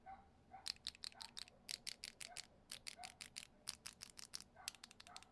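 Typing on a mechanical keyboard fitted with linear switches: a quick, uneven run of keystroke clacks, several a second, starting just under a second in.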